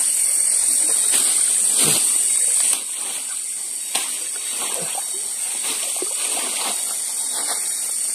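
Irregular splashing and sloshing of river water as freshly caught fish are washed and cleaned, over a steady high hiss; the overall level drops suddenly about three seconds in.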